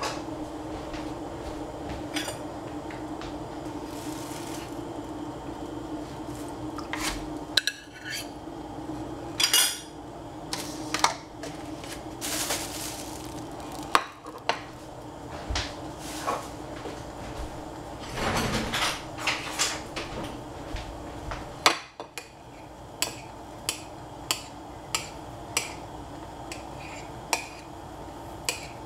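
Kitchen utensils clinking and knocking against pots and dishes over a steady low hum. Near the end comes a run of evenly spaced knocks, about one a second.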